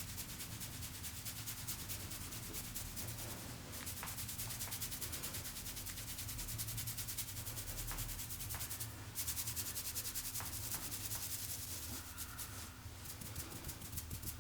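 Hands rubbing quickly and evenly over hair and scalp in a head massage, a fast train of swishing strokes with a few faint clicks.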